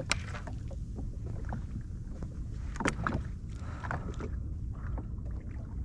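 Steady low rumble of water and wind around a Sea-Doo personal watercraft on the sea, broken by a few sharp clicks; the loudest click comes just after the start, another about three seconds in.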